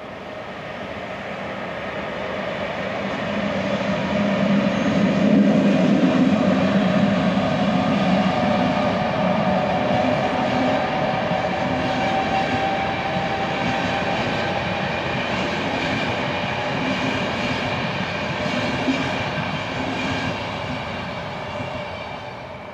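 Passenger train running past along the line: the sound builds over the first few seconds, holds steady as the coaches go by, and fades near the end.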